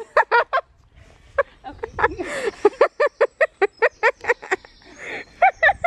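Women laughing hard in fits of quick, evenly spaced 'ha-ha' bursts: a short run at the start, a long run of rapid bursts in the middle, and another near the end.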